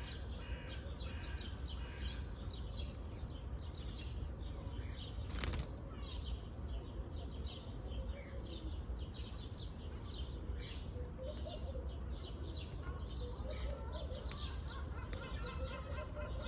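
Pet parrot chirping over and over in short, high chirps, over a steady low rumble, with a brief rush of noise about five and a half seconds in.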